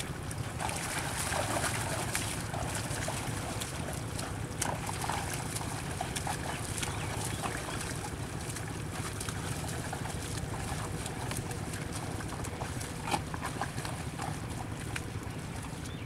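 Wet mud and water sloshing and splashing as a pair of bullocks drag a wooden leveling board through a flooded paddy field, with many small splashes and a few louder ones over a steady hiss.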